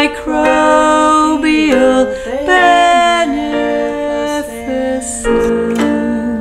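Two women singing held notes in harmony without clear words, the voices holding each note and gliding together to the next.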